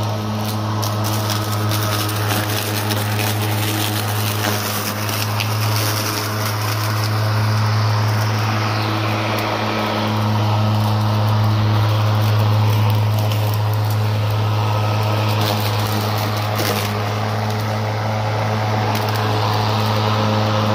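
Greenworks Pro 60 V brushless cordless lawn mower running steadily in turbo mode, a loud even hum, as it vacuums up and bags semi-wet leaves. Rapid ticking and crackling of leaves and debris striking the deck, mostly in the first several seconds, with a few more later.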